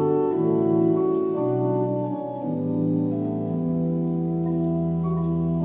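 Church organ playing a hymn interlude between sung verses: held chords that change every second or so.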